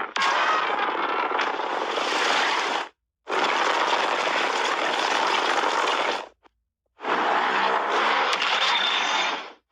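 Godzilla's roar sound effect from the 2021 film, played three times. Each roar is a noisy, screeching roar about three seconds long that cuts off abruptly, with a short silent gap between roars.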